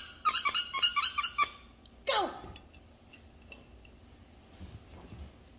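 Squeaky dog toy squeezed in a quick run of short, high squeaks, about six a second, for the first second and a half, followed about two seconds in by one longer squeak sliding down in pitch.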